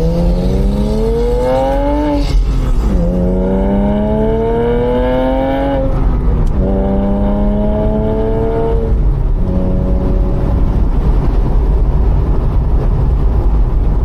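Porsche Boxster S flat-six through Circuit Werks headers, cat-back and Totalflow mini race mufflers, accelerating through the gears with gentle upshifts about two and a half and six seconds in. It holds its revs briefly, then the engine note fades into steady road noise about nine seconds in. The tone is smooth rather than raspy, the mufflers having removed the rasp.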